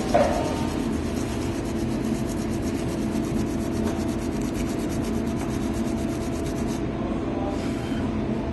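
Coarse sandpaper (P60–P80 grit) rubbing steadily over the end grain of a wooden wine barrel, sanding back the spot where wine is leaking so the leak can be seen, over a steady low hum. The sanding stops near the end.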